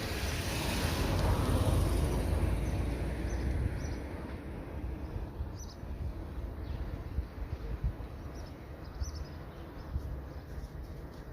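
Bicycle ride with wind rumbling on the microphone. A loud whooshing swell builds and fades over the first three seconds. After that, birds chirp and a few knocks sound.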